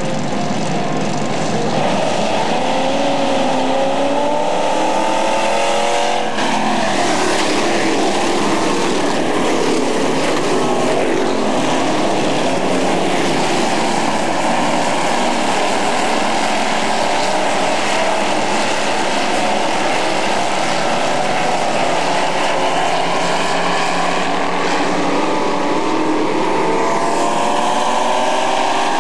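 A pack of dirt-track super truck engines racing at full throttle, their pitch rising as the trucks accelerate, a few seconds in and again near the end.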